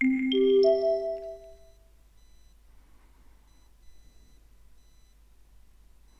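Three-note rising chime, the notes struck one after another within about two-thirds of a second, each ringing on and fading out within about two seconds. It is the signal tone of a listening-exam recording, marking the start of the next item.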